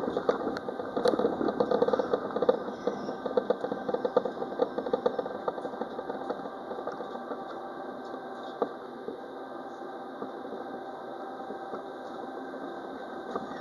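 Alstom Citadis Dualis tram-train running along the track, heard from the driver's cab: a steady running noise with dense rattling and clicking, which eases off and gets quieter about halfway through.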